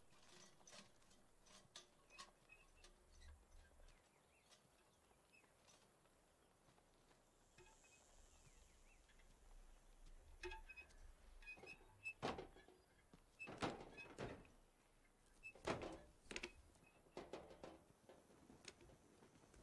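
Near silence broken by scattered soft footsteps and small knocks on pavement, with a few louder short thuds in the second half.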